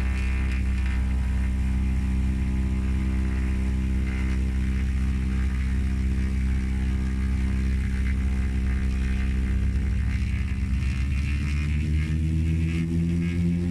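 Small plane's propeller engine running steadily, heard from inside the cockpit; its pitch rises from about eleven seconds in as the power comes up on the grass airstrip.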